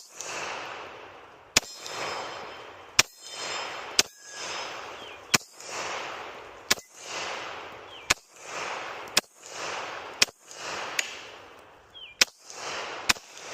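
Glock 21 .45 ACP pistol fired slowly at steel targets: about a dozen single shots, roughly one a second. Each sharp crack is followed by an echo that rolls out and fades before the next shot.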